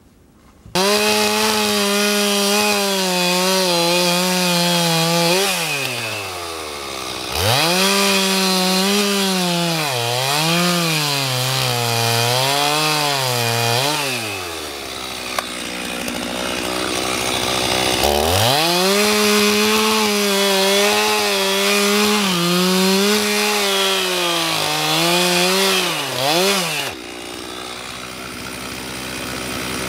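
Two-stroke chainsaw cutting through a log at full throttle in three long cuts, its pitch dipping and wavering as the chain loads up in the wood. Between cuts it drops back to idle.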